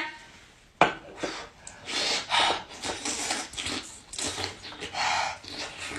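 Eating a hot giant sea snail: a sharp click about a second in, then a string of short noisy slurping and chewing sounds.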